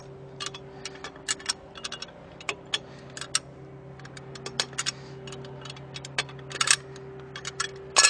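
Lug wrench on the wheel's lug nuts, giving irregular sharp metal clicks and clinks as the nuts are snugged tight, with a faint steady low hum underneath.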